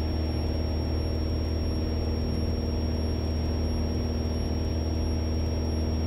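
Piper PA-28 Warrior's four-cylinder Lycoming engine and propeller running steadily in cruise, heard inside the cabin. The drone is low and even throughout, with a thin steady high tone over it.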